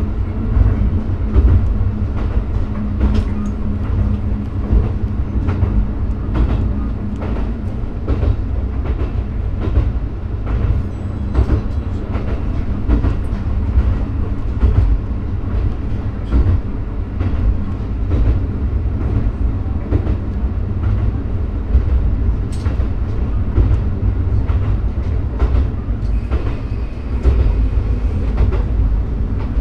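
Diesel railcar running along the line, heard from inside the cab: a steady engine drone and rumble, with the wheels clicking over rail joints throughout.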